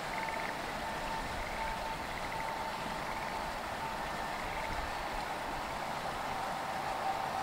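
Frogs calling in short trills about every second and a half, over a steady high note that keeps breaking off and resuming. Near the end a faint rumble from a freight train approaching inside the tunnel begins to swell.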